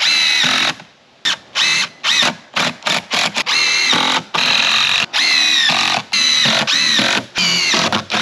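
Cordless impact driver sinking 3-inch wood screws into a 2x10 stop block, run in about a dozen short trigger pulls. Each one is a motor whine that climbs and then drops in pitch.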